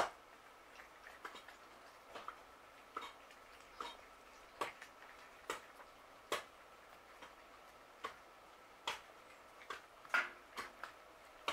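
Several cats chewing food from a shared dish, making irregular sharp crunching clicks about one or two a second.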